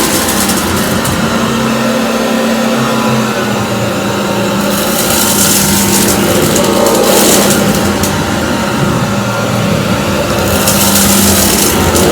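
Cordless stick vacuum running on high speed over a linoleum floor, picking up scattered dry debris: a steady motor hum, with a louder hiss swelling about five seconds in and again near the end.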